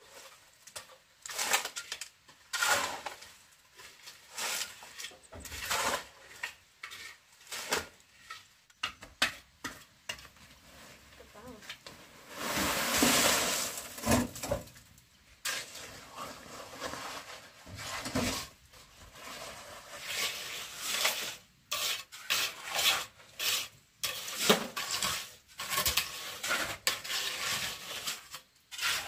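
Wet concrete mix with gravel being scraped and pushed over the ground with a hoe, in irregular gritty strokes. About twelve seconds in, a longer rush of sliding concrete as a wheelbarrow load is tipped out.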